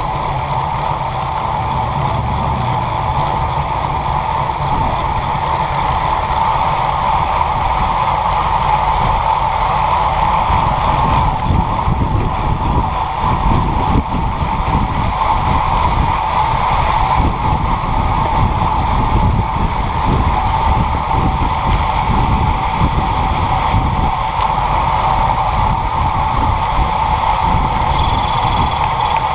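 Road bike rolling at speed on asphalt, heard through a bike-mounted camera: steady tyre and wind noise with a constant hum and a rumble of road vibration through the mount.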